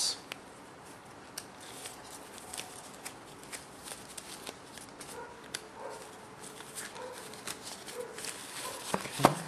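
Hands handling cardboard packaging of a computer's accessory box: scattered light taps, scrapes and rustles, with a brief louder sound near the end.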